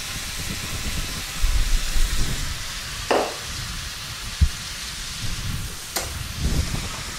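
Pork chunks and bell peppers sizzling steadily in a frying pan with salsa just poured over them, with a few brief knocks and clicks.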